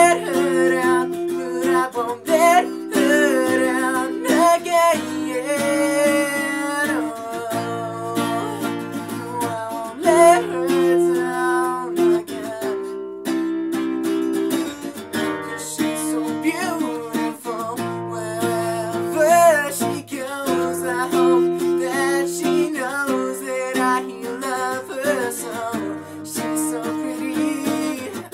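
Nylon-string classical guitar playing chords, with a man singing a melody over it.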